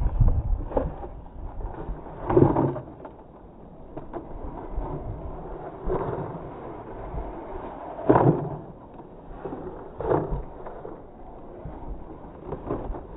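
Radio-controlled off-road buggy scrabbling up a loose dirt slope and tumbling over. It makes about six short, noisy bursts of wheelspin and dirt-scuffing over a low rumble.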